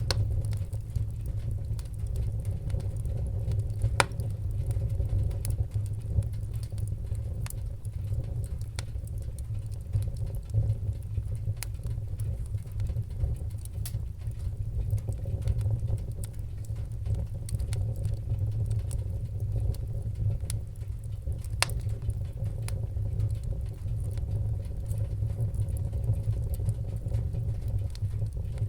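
Fire crackling: scattered sharp pops and snaps over a steady low rumble of the flames, with a couple of louder pops about 4 and 22 seconds in.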